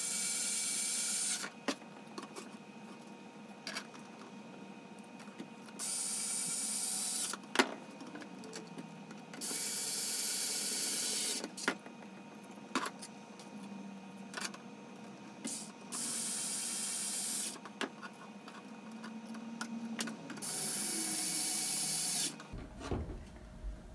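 Cordless electric screwdriver running in five short spurts of about a second and a half each, driving M3 screws into 3D-printed PLA planks. Small clicks and knocks of plastic parts being handled come between the runs.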